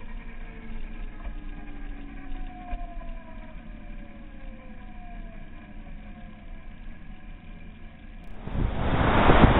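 Yamaha YZF-R1's crossplane inline-four engine heard from the handlebars, its note falling slowly as the rider rolls off the throttle, under road noise. About eight and a half seconds in, loud wind buffeting the microphone takes over.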